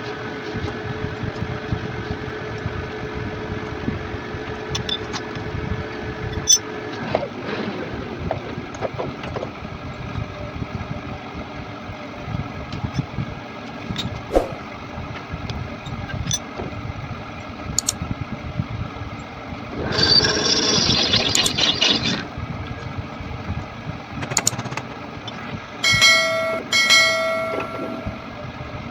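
Metal lathe running while machining a bush, with a steady whine that stops about seven seconds in, then scattered ticks. Near twenty seconds there is a harsh two-second burst, and near the end two short pitched squeals.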